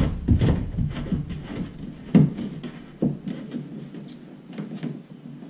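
Light knocks and rubbing inside a plastic kayak hull as a through-hull wiring fitting's back nut is tightened by hand, with two louder thumps about two and three seconds in.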